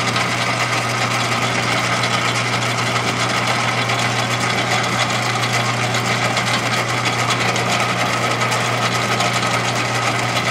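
Atlas bench lathe running steadily, its motor and drive giving an even hum while a boring bar takes a light cut inside a small part.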